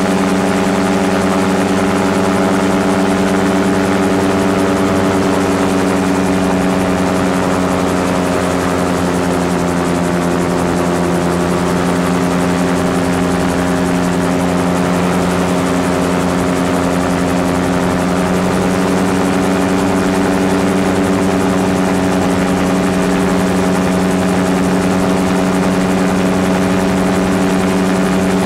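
Gyrocopter's engine and pusher propeller running steadily in flight, an even engine hum with no change in power, over a constant rush of air.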